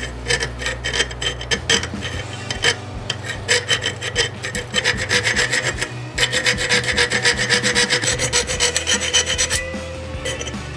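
Hand file rasping over metal in quick, repeated strokes, cleaning up the edges of a freshly milled stop pin track on a folding knife.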